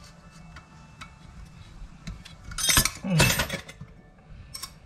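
Metal hand tools clinking and scraping against engine parts during a strip-down: scattered light clicks, then a louder clatter of several strikes about three seconds in.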